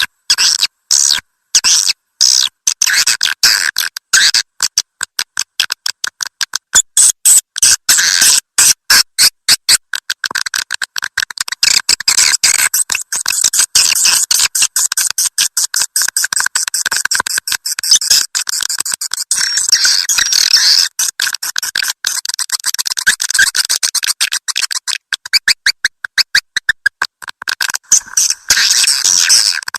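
Swiftlets calling inside a swiftlet house: dense, rapid trains of sharp, high chirping twitters, many per second, broken by short silences in the first few seconds and then nearly continuous.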